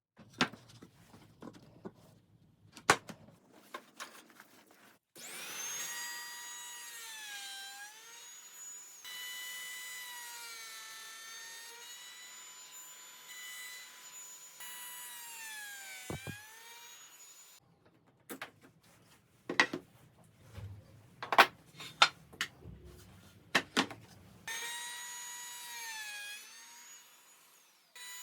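Power woodworking tool cutting walnut or camphor lumber: a high whine that dips in pitch each time the cutter bites into the wood, in two long passes. Between the passes come sharp wooden knocks and clunks as the boards are handled on the machine.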